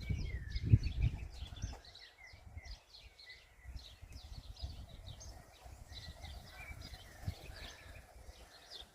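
Small birds chirping and singing, many short high notes in quick succession, with a low rumbling noise in the first two seconds that then dies away.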